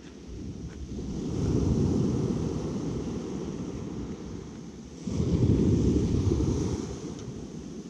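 Low rumble of wind buffeting the microphone, swelling twice: about a second in and again around five seconds in.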